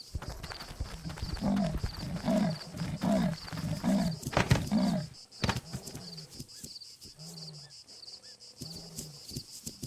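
African buffalo bellowing: a run of about five low moaning calls in quick succession, then fainter, shorter low calls, with a high repeating chirp behind them.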